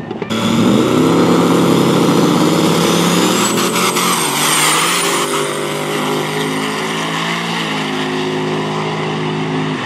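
Drag race car engine at full throttle, coming in suddenly just after the start. A high whine rises in pitch from about three to five seconds in, then the engine note holds steady.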